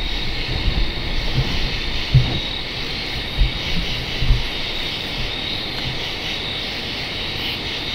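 Steady high-pitched drone of night insects in the forest, with a thin steady tone running through it. A few low, dull knocks of handling noise in the first half.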